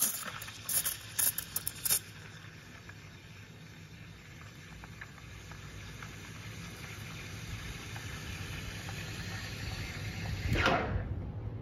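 The steam wand of a Ferratti Ferro FCM-3243 Le Gazzio Doppio two-group espresso machine steaming milk in a stainless pitcher. A few sharp hissing bursts in the first two seconds as air is drawn in to stretch the milk are followed by a steady hiss that slowly grows louder as the milk rolls and heats. A brief louder sound comes near the end.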